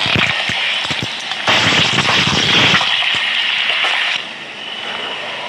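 Car tyre rolling over and crushing a plastic candy tube: a dense crackling crunch full of sharp snaps, loudest in the middle, dropping to a quieter hiss near the end.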